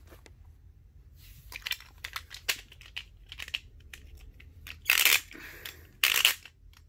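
Gargoyle G5 Beyblade top spinning and skittering across a plastic Beyblade stadium, making a run of light clicks and scrapes. There are two louder hits, about five and six seconds in.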